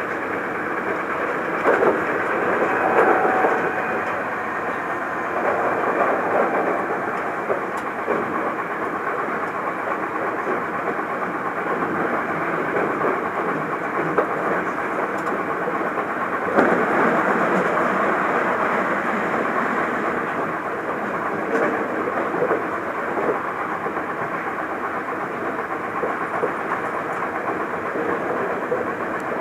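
Interior running noise of a Hankyu Kyoto Line train car at speed: a steady rumble of wheels on rail, with a few sharp rail-joint clicks and a louder stretch beginning just past halfway.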